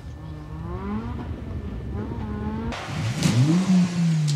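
Citroën C2 VTS rally car's engine revving hard as it accelerates, its pitch climbing through the gears. About two-thirds in it becomes much louder, rising and then falling.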